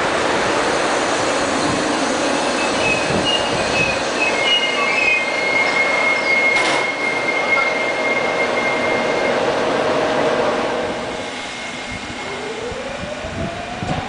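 Passenger coaches of an express train rolling past and braking to a stop, with a steady high-pitched brake squeal in the middle. It then goes quieter, and near the end a tone rises in pitch.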